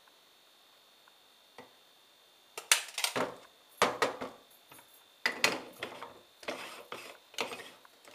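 Stovetop moka pot being handled: a series of sharp metal knocks and clinks, some ringing briefly, starting a few seconds in after a quiet stretch with a faint hum.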